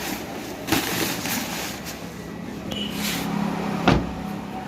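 A few sharp knocks, the loudest one about four seconds in, over a low steady hum that starts about halfway through.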